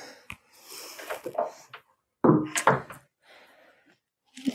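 Handling noises as a stemmed wine glass is taken out of a laser cutter's metal bed: a light click, some rustling, then a sharper knock about two seconds in.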